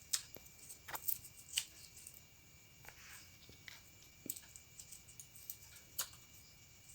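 Scissors cutting double-sided tape around a small round magnet: several faint, sharp snips and clicks at irregular intervals.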